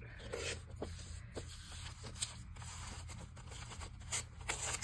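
Magazine paper being handled and pulled out: soft rustling with a few light clicks and taps, over a steady low hum.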